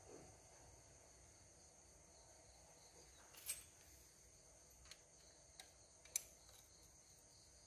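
Near silence with a faint steady high hiss, broken by a few light metallic clicks about three and a half seconds in and again around five to six seconds: a ring spanner picked up and fitted onto a valve adjuster nut on a motorcycle cylinder head during valve clearance adjustment.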